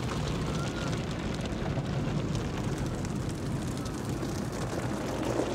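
Automatic car wash heard from inside the car: water spray and cloth brushes working over the foam-covered windshield and body in a steady, dense rush.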